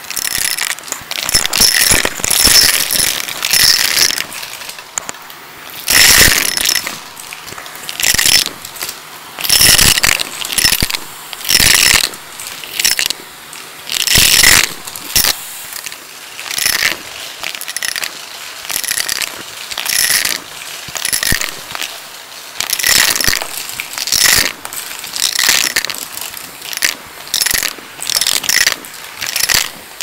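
Vacuum cleaner sucking coins up off a carpet, the coins clattering and rattling up through the hose in repeated bursts over the steady run of the vacuum, the loudest bursts in the first half.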